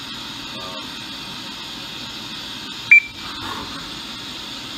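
CNC vertical milling machine running with a steady hum inside its enclosure, and a single short, high beep about three seconds in.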